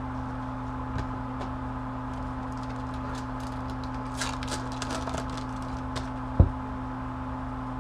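Trading cards and a foil pack wrapper being handled on a table: a run of crisp crinkles and ticks, then a single low thump about six seconds in, over a steady low hum.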